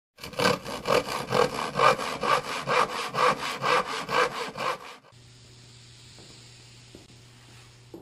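Hand saw cutting through wood in even back-and-forth strokes, about two a second, stopping after about five seconds; a quiet steady hum with a faint hiss follows.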